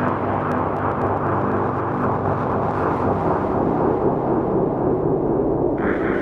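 Steady outdoor rumble, a noisy haze with no clear rhythm or pitch; near the end it abruptly turns brighter at an edit in the audio.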